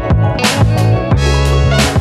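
Background music with sustained chords, a heavy bass and a beat of about two hits a second.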